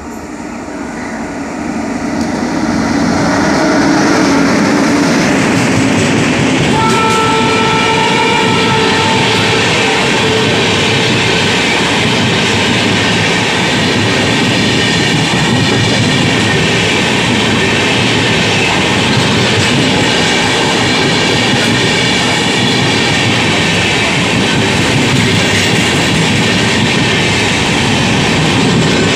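Express train of LHB coaches approaching and passing at speed. A rising rush as it nears, a horn sounded for about two seconds some seven seconds in, then the steady run of coaches with wheels clattering over the rail joints.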